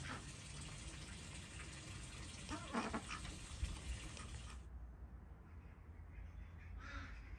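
A single short animal call about three seconds in, over a steady outdoor background hiss. The hiss thins out suddenly about two-thirds of the way through, and a few faint calls follow.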